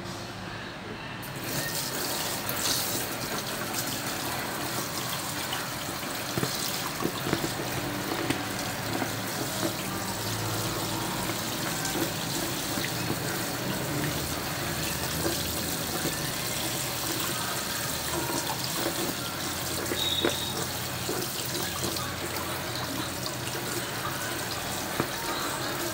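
Tap water running into a stainless-steel sink and splashing over hands as they flush and rinse a cleaned hog casing. The water starts about a second in and runs steadily, with small splashes and clicks.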